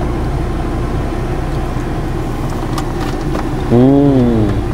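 Steady low rumble of a car idling with traffic around it. Near the end a voice hums one loud 'mmm' that rises and then falls in pitch, as someone tastes a momo.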